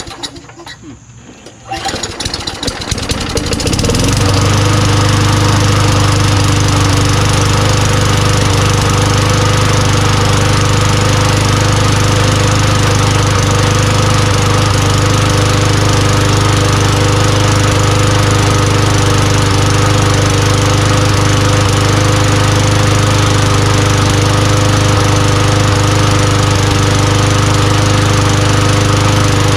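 Craftsman push mower's single-cylinder Tecumseh engine being pull-started. It catches about two seconds in, speeds up, and then runs steadily at full speed. It is running with the air filter off, just after a quick carburetor clean.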